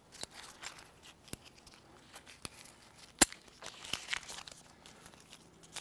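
Light metal clicks and rustling from a carabiner, pulley block and rope being clipped and adjusted by hand on a tree strap. One sharper click comes a little over three seconds in.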